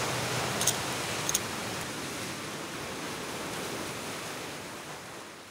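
Sea surf rushing over rocks: a steady wash of water noise with two faint short clicks in the first second and a half, fading out near the end.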